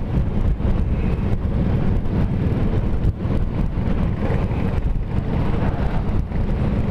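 Honda Gold Wing motorcycle running steadily at cruising speed, heard from the rider's seat, with wind rushing over the microphone.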